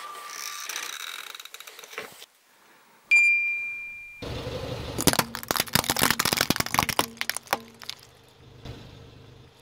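A single bright ding about three seconds in, ringing and dying away over about a second. Then a car tyre rolls over Christmas baubles and crushes them, giving a run of sharp cracks and crunches of shattering shells.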